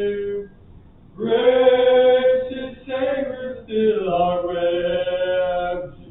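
Slow hymn singing without instruments, in long held notes. A phrase ends just after the start, and after about a second's pause the voice comes back with sustained notes, broken by short breaths.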